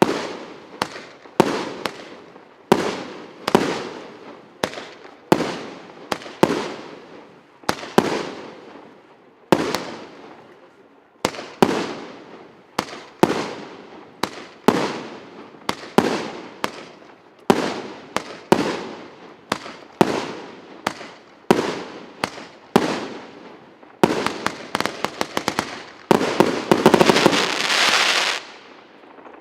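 A 150-shot, 1.2-inch "Megapolis" firework battery (PC896) firing shot after shot, about one bang every three-quarters of a second, each followed by a fading crackle. Near the end it breaks into a fast volley of many shots and dense crackling.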